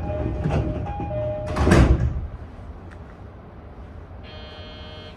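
E233-series train's door-closing chime sounding in steady tones, then the sliding doors bang shut at about two seconds in, the loudest sound. Near the end a short buzzer tone sounds for about a second.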